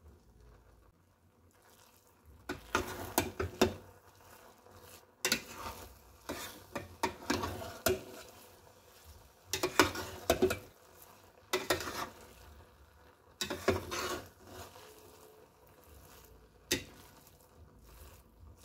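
A metal spoon stirring and folding cooked rice in a stainless steel pot, scraping and clinking against the pot. It comes in several spells of about a second each with short pauses between, starting about two and a half seconds in, with a single clink near the end.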